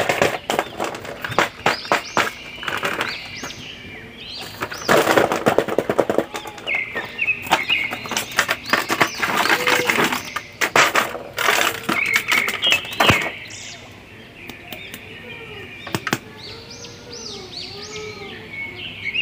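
Cardboard box and clear plastic packaging rustling and crinkling in the hands as an action figure is unpacked, in a run of irregular crackles and knocks, with birds chirping in the background.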